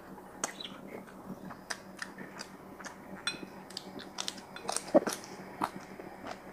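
Close-up eating sounds: chewing and lip smacks over a mouthful of rice and boiled vegetable, a string of small wet clicks with a louder one about five seconds in.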